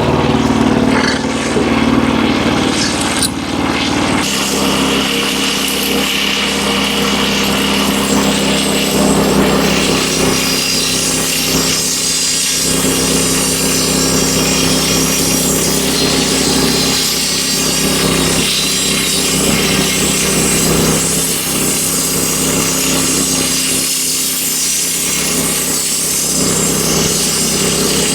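Wood-Mizer LX25 band sawmill running steadily, its blade cutting lengthwise through a hemlock beam. The low hum shifts about four seconds in.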